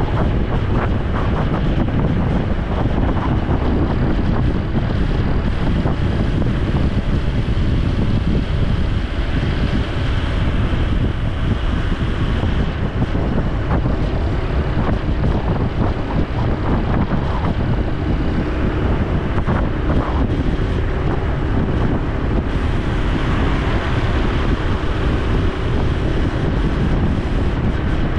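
Honda Super Cub C125's single-cylinder engine and exhaust running steadily under way, mixed with heavy wind buffeting on the camera microphone.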